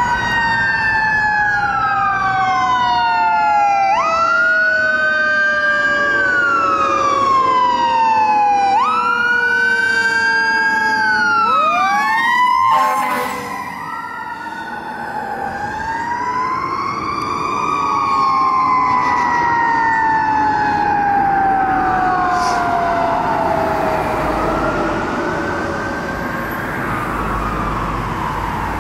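Responding fire engine's sirens: a wail rising and falling every few seconds layered with a long tone that slowly falls in pitch, is spun back up about 13 seconds in, then falls again, over passing traffic.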